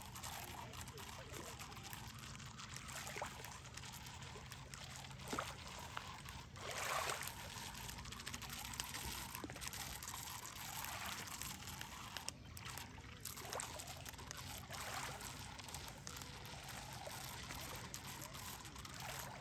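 Shallow lake water lapping and trickling, with a louder splashy stretch about seven seconds in.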